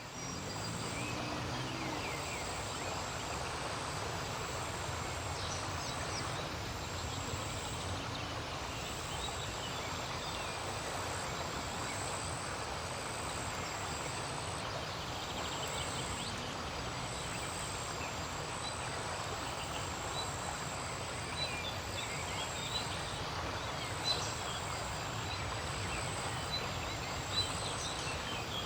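Riverside ambience: a steady, even background rush with faint frog calls and bird chirps over it. The chirps come more often in the second half. A thin, high pulse repeats about every two seconds throughout.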